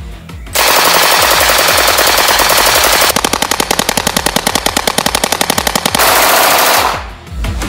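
Thompson submachine gun in .45 calibre with a drum magazine firing long fully automatic bursts, about ten shots a second. The firing stops suddenly near the end.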